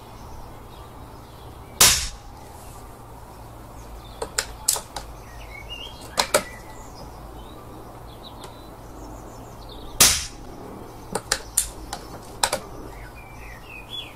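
Unsilenced Daystate Wolverine Mk1 PCP air rifle firing two sharp cracks about eight seconds apart, with several lighter clicks in between.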